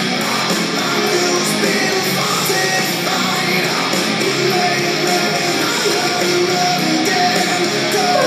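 Rock music with guitar and singing at a steady level.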